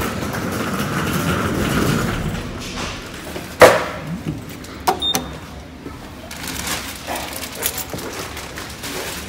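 Aurora passenger lift's doors and controls: a steady hum fades in the first few seconds, then one loud thud about three and a half seconds in, followed about a second later by two sharp clicks with a short beep, and softer clicks after.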